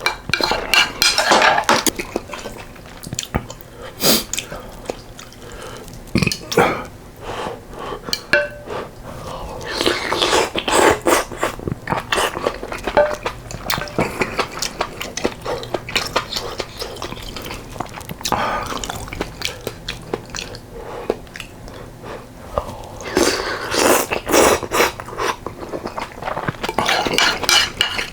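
Close-up eating sounds: chewing and biting of yukgaejang with rice and fresh kimchi, with spoon and chopsticks clicking against the bowl at irregular moments.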